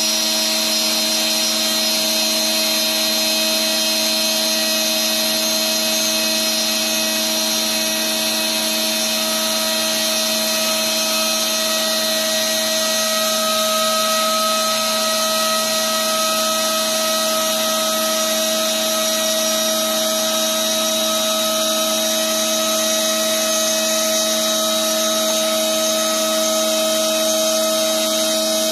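Shapeoko CNC router spindle running at speed with a steady whine while its bit mills a truss rod slot along a wooden guitar neck, cutting wood continuously.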